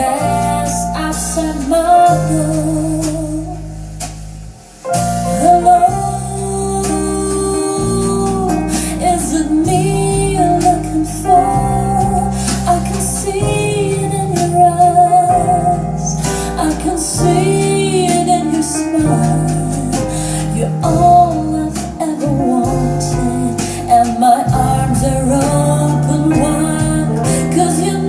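A recorded song with a singer over keyboard chords and deep bass notes, played back through a pair of Tannoy Canterbury SE loudspeakers and heard in the room. The music dips briefly about four and a half seconds in, then comes back.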